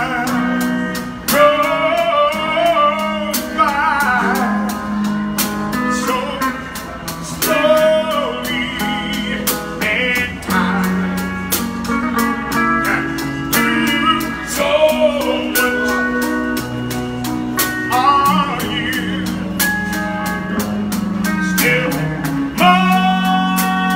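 Intro music: a song with a singing voice over guitar, bass and a steady drum beat.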